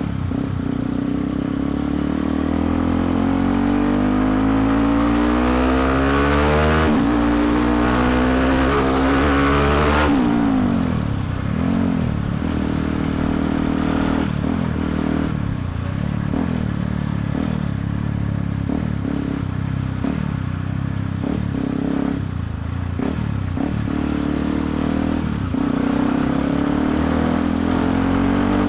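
Yamaha WR155R's single-cylinder engine heard from the moving bike, revs climbing steadily for about ten seconds, then dropping suddenly and running on at lower, wavering revs.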